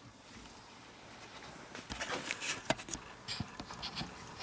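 Irregular light scuffs and clicks, from about two seconds in: footsteps and handling noise as a hand-held camera is carried across a concrete floor.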